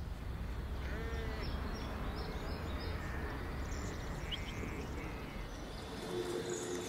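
Sheep bleating from a flock, a short bleat about a second in and a longer one near the end, with birds chirping now and then over a steady low outdoor background.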